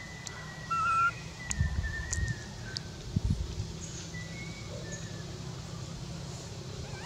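Faint birdsong: several short, thin whistled notes scattered through, some wavering or sliding. Low rumbles sound under them, loudest about a second in.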